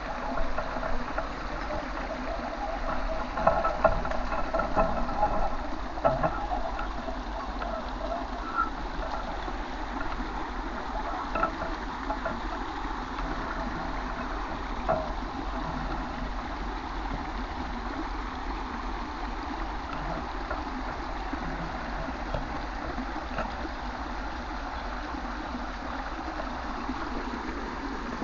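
Small stream running over stones, a steady rushing and gurgling, with a few brief higher sounds in the first several seconds.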